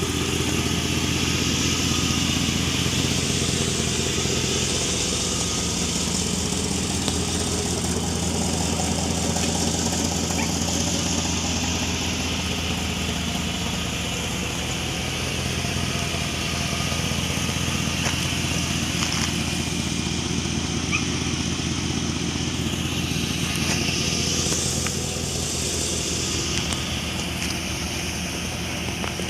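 2000 Chevrolet Silverado pickup idling steadily through its dual exhaust.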